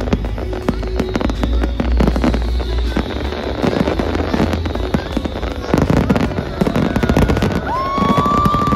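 Fireworks going off in rapid, irregular succession, with bangs and crackling over a low rumble. Near the end a long whistling tone rises and holds.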